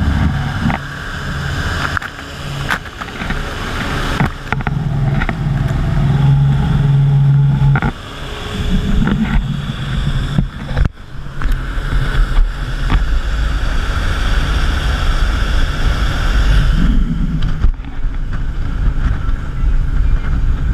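Nautica 41 powerboat running at speed: engine drone under a loud rush of water and spray, with wind noise buffeting the microphone.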